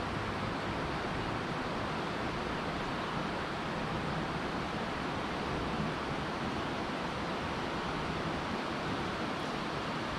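Steady rush of flowing river water, an even noise with no separate events.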